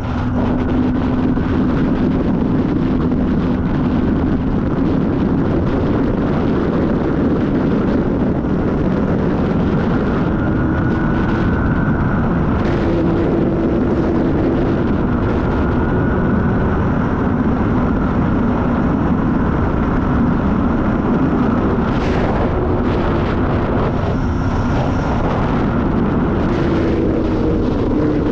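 Sport motorcycle riding at speed, with heavy wind noise on the microphone over the engine note. The engine's pitch drifts gently up and down with the throttle.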